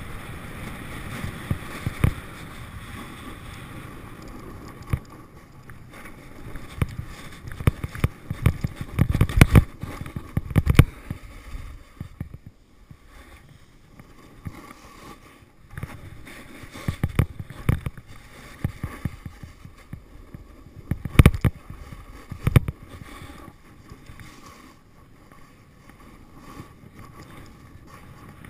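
Snowboard base and edges scraping over firm spring snow in a steady hiss, with wind buffeting the microphone. Sharp knocks and rattles break in, thickest about a third of the way in and again about three-quarters of the way through.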